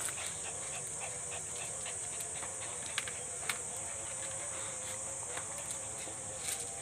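Steady high-pitched drone of insects chirping, with a few faint clicks and rustles, two slightly louder about three seconds in.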